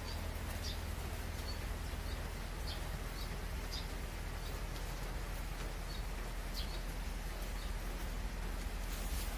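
Short high chirps of a fledgling barn swallow, a dozen or so at irregular intervals, over the steady low hum of a tractor engine running.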